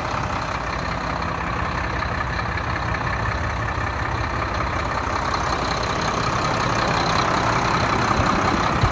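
A Mack Granite dump truck's Mack diesel engine idling steadily with the hood tilted open, getting a little louder near the end as the engine bay comes close, with a short click just before the end.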